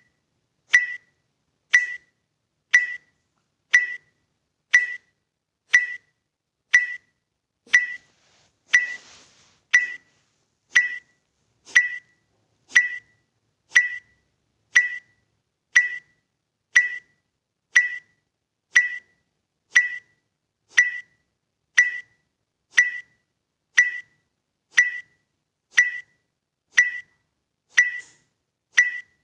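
Electronic interval-timer beep sounding once a second at an even pace, each a short, high tone, counting down a Kapalabhati breathing round. A faint brief rushing noise comes about nine seconds in.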